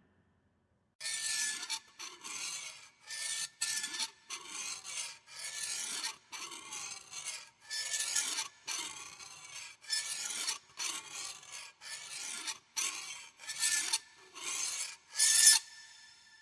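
Horror sound effect of harsh scraping: a long series of uneven rasping strokes, about one and a half a second, each carrying a faint squeal. It starts about a second in, and the loudest stroke comes near the end before a short fading tail.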